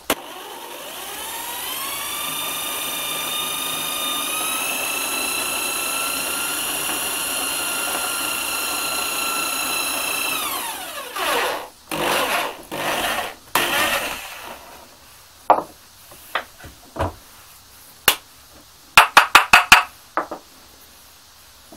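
Electric drill with a 9 mm bit boring into a wooden block through a wooden drill guide: the motor whine rises as it spins up, holds steady, then winds down about ten seconds in. A few short bursts follow, then scattered knocks and a quick run of clicks as the block and guide are handled.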